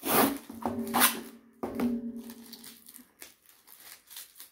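Adhesive tape being peeled off a cardboard box in a few short pulls during the first two seconds. Some pulls leave a steady pitched tone that lingers for about a second, followed by quieter scattered handling ticks.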